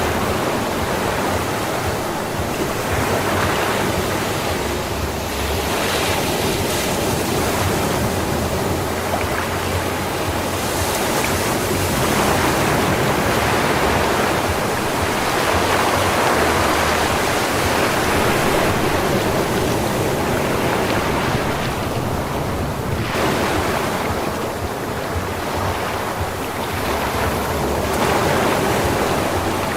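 Sea waves breaking and washing up on a sandy beach, a continuous surf that swells and eases every few seconds.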